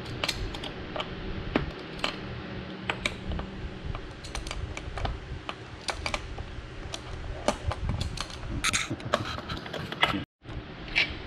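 Irregular light metallic clicks and taps of a spanner working the steering-stem nut and fork-top hardware on a motorcycle's top triple clamp, over a low steady hum.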